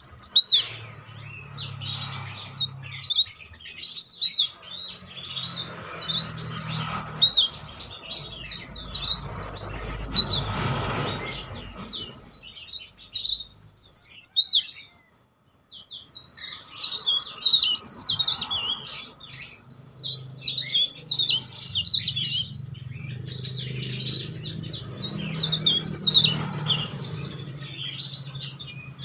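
Caged cikrak daun warbler singing loud, shrill, rapid twittering phrases of quick rising and falling whistled notes, each phrase a few seconds long with brief pauses between them.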